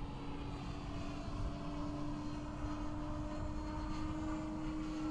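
Radio-controlled Seagull Models Cessna 208 Grand Caravan model in flight, its motor and propeller giving a steady drone at an even pitch.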